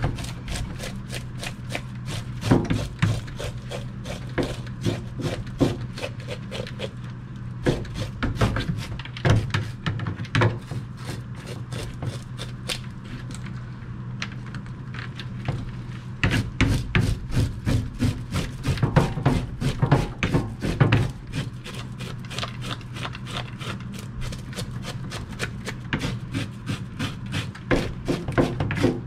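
Kitchen knife scraping the scales off a Korean rockfish: quick runs of rasping strokes, several a second, with the blade and fish knocking against a plastic crate, broken by short pauses.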